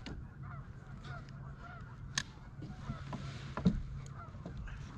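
A flock of geese honking, many short calls overlapping, over a steady low engine hum, with a couple of sharp clicks.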